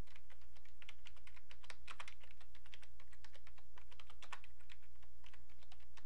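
Typing on a computer keyboard: a quick, uneven run of key clicks over a steady low hum.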